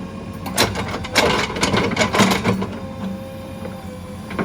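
JCB 3DX backhoe loader running steadily, with a quick run of sharp clattering knocks from about half a second to two and a half seconds in as the bucket digs and scrapes at soil.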